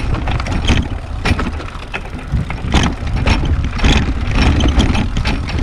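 Pedal-powered rail bike rolling along the railway track: its steel wheels keep up a steady low rumble, with irregular clacks and knocks from the wheels and frame over the rails.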